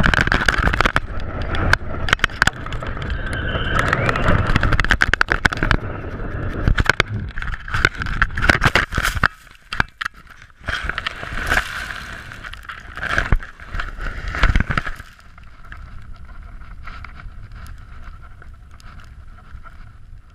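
Wind buffeting the microphone of a GoPro slung under a kite, with rapid rattles and knocks from the loosely fastened camera as it tumbles. About fifteen seconds in the knocking stops, leaving a quieter steady wind rush.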